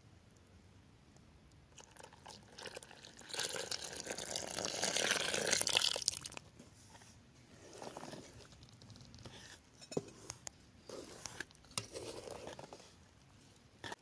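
Milk poured into an enamel bowl of flour, a few seconds of splashing pour. Then a wooden spoon stirs the flour mixture, scraping the bowl with several light knocks.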